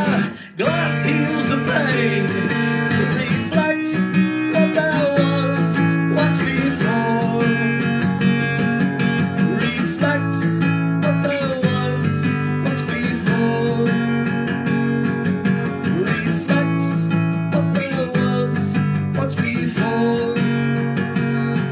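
Acoustic guitar strummed steadily with a man singing along into a microphone. The sound cuts out briefly about half a second in.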